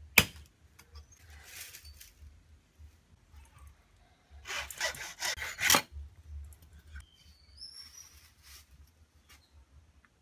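A single sharp machete chop into a wooden block just after the start, then rough scraping and rubbing strokes as a stalk broom is worked by hand, loudest about five seconds in.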